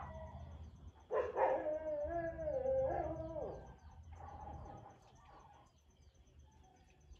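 Baby crocodiles calling: several high, wavering calls overlap for about two seconds starting about a second in, followed by a few fainter calls.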